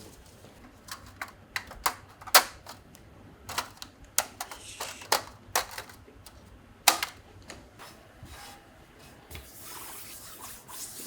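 Irregular sharp clicks and taps of hand tools and engine parts being handled during engine reassembly, with a soft rustle near the end.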